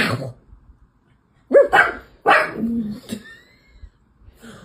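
A dog barking: a short bark at the start, then two loud barks about a second and a half in and a weaker one after them.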